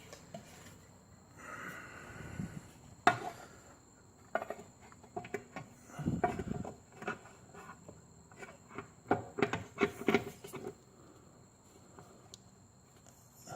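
Irregular clicks and knocks of metal parts being handled as the transmission cover of a Yamaha Majesty 400 scooter is fitted back over the variator and belt, with a duller thump about six seconds in and a quick run of clicks near ten seconds. A faint steady high-pitched whine sits underneath.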